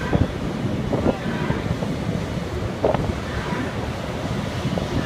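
Wind buffeting the microphone over a steady low rumble of drilling rig machinery, with a couple of short clanks about one and three seconds in.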